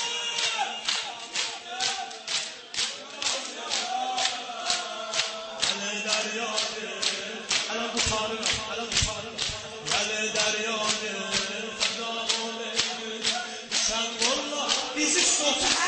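A male reciter chants a noha mourning lament in Azerbaijani Turkish through a microphone. A crowd of men beats their chests in unison with him, sharp slaps about three a second.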